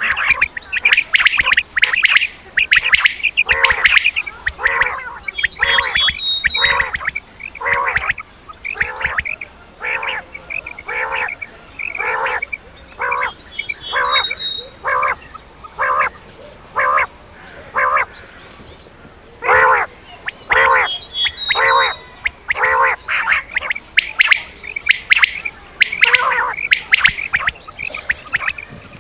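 Quail (batair) calling over and over: short, sharp calls repeated about one to two a second in steady runs, with a brief pause about two-thirds of the way through. This is the kind of quail call that hunters play to draw quail into their nets.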